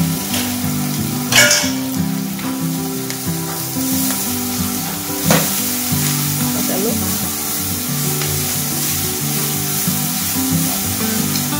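Onions sizzling in hot oil in an aluminium wok over a gas burner, stirred with wooden chopsticks, with a sharp knock about a second in and another about five seconds in. About halfway through, shredded banana root is tipped into the oil and keeps sizzling as it is stirred.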